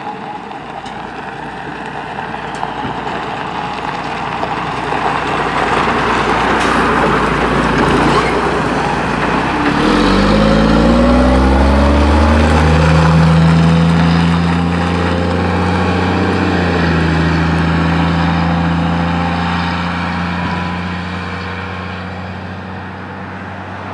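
The diesel engine of a 1986 Peterbilt 310 front-load garbage truck runs as the truck approaches. About ten seconds in, close by, the engine note climbs as the truck accelerates away. It then holds a steady low note and slowly fades as the truck drives off.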